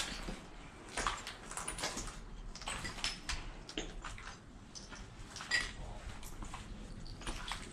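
Footsteps crunching and clicking over debris on a derelict floor: irregular small cracks and clinks, with sharper ones about a second in and near five and a half seconds in.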